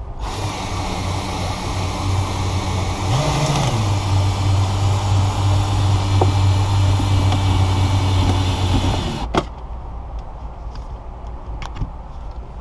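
Ryobi cordless drill running steadily under load, driving a windshield cut-out winder that reels the cutting line through the glue bead. Its pitch rises briefly about three seconds in, and it stops abruptly after about nine seconds, followed by a few light clicks.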